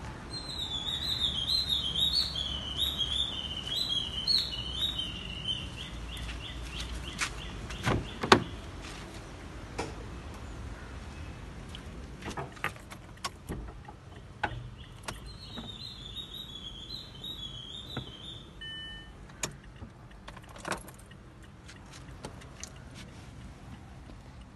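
Scattered clicks and knocks of handling in and around a car, with one sharp knock about eight seconds in, as someone gets into the driver's area and lifts the floor carpet. A bird sings a quick repeated chirping phrase in the background during the first five seconds and again later.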